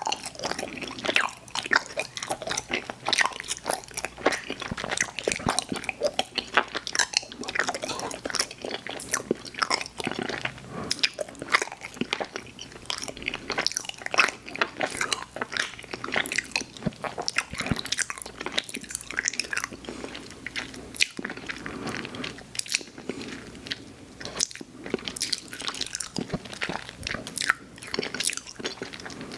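Close-miked chewing and biting of chewy candy: a steady run of wet mouth clicks and sticky crackles with no pause.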